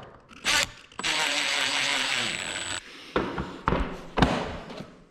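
Cordless power screwdriver driving a screw into the motorcycle's tail fairing, running steadily with a thin high whine for about two seconds, followed by a few sharp clicks.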